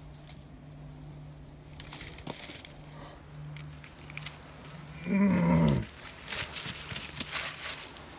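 A kitten scrambling over a small tree trunk and through dry fallen leaves, the leaves rustling and crackling in bursts, with one loud, short cry that falls in pitch about five seconds in. A faint steady low hum runs underneath.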